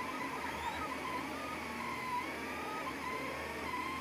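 Anycubic Kossel delta 3D printer printing: its stepper motors whine in tones that keep shifting and stepping in pitch with each move, over a steady whirr of fan noise.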